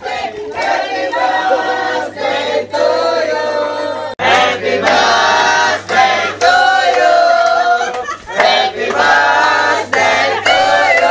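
A group of young men singing loudly together in phrases, clapping along, with a short break about four seconds in.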